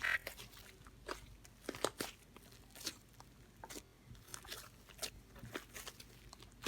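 Irregular crunching, as of something being chewed, about one or two crunches a second.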